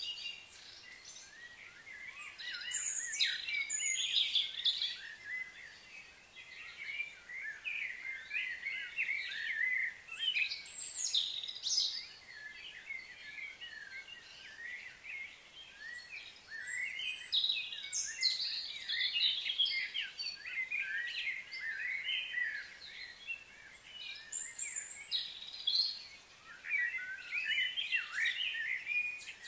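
Birds chirping and calling in bouts of several seconds, with quieter gaps between.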